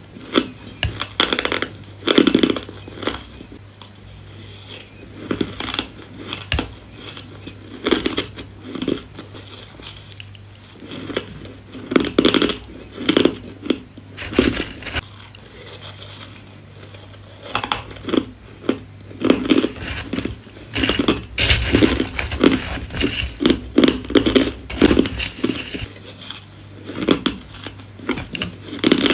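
Close-miked bites and chewing of crushed purple ice: crisp crunches in irregular clusters with short pauses between spoonfuls, busier in the second half.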